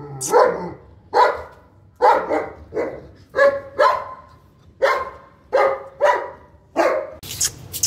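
A dog barking over and over, short barks coming about once a second, some in quick pairs. A brief scratchy rustle comes near the end.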